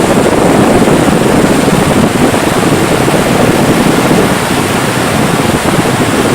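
Steady rushing noise of wind buffeting the microphone and water washing past a moving boat.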